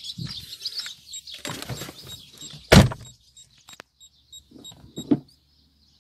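A car door on a VW Golf 4 slams shut about three seconds in. It is followed by a row of short, high beeps, about three a second for roughly two seconds, from the newly fitted parking sensor's buzzer, and a small knock. Birds chirp at the start.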